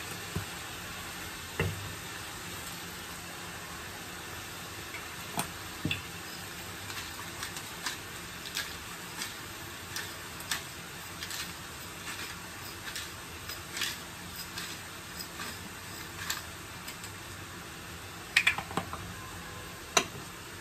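Cabbage and tuna frying in a pan with a steady sizzle, broken by scattered sharp clicks and pops as a hand pepper mill is twisted over it. A couple of louder knocks come near the end.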